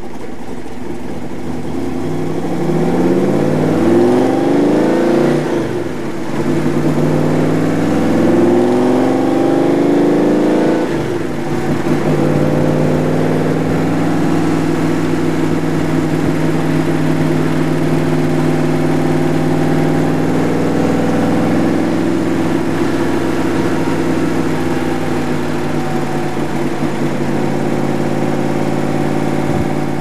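Roush 427SR V8 of a Superformance MkIII Cobra replica, heard from the passenger seat of the open car. It pulls up through the gears, with the engine note rising hard, dropping at an upshift about six seconds in, rising again and dropping at a second upshift about eleven seconds in. It then cruises at a steady engine speed.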